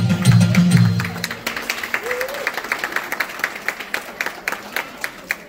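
The Thiruvathira song music stops about a second in, and audience applause follows, with the separate claps heard one by one.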